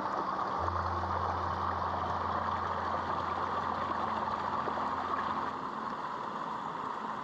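Small mountain stream cascading over mossy rocks: a steady rushing and splashing of water, a little quieter near the end.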